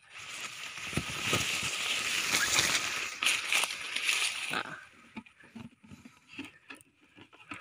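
Rustling and crackling handling noise with many sharp clicks, lasting about four and a half seconds, followed by a few faint clicks and knocks.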